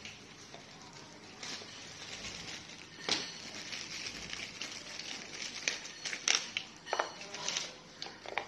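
Clear plastic parts bag crinkling as it is handled and small plastic clips are taken out of it. There are sharp crackles from about three seconds in, thickest near the end.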